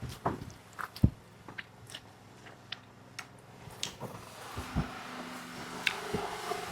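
A person eating: bites and chewing, with scattered small clicks and knocks, such as utensils or a plate.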